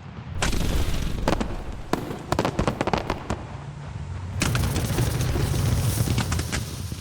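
Aerial fireworks bursting close by: a dense run of sharp cracks and crackling over a continuous low rumble, thickening into a louder stretch of crackle about four and a half seconds in.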